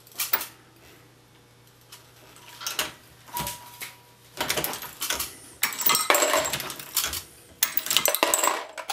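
Lee Loadmaster progressive reloading press worked by hand: a few separate clicks and knocks from the press mechanism, then about four seconds of dense metallic clinking and rattling as the press cycles and brass .223 cases are handled.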